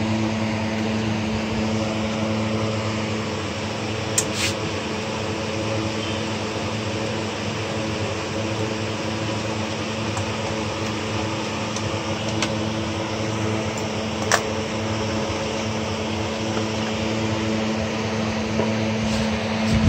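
A steady, even-pitched machine hum throughout, with a few short, sharp metallic clicks and taps from hand tools working on a disassembled scooter engine.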